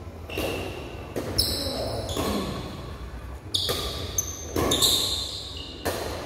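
Badminton rally: sharp racket strikes on the shuttlecock, about half a dozen in quick succession, each echoing in the hall.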